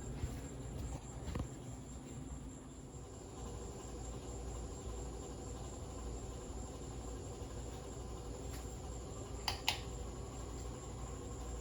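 Harbor Breeze Lakeside II ceiling fan running slowly on a bad capacitor: a steady low hum with a thin, steady high-pitched whine over it. A couple of short clicks come about a second and a half in and again near the end.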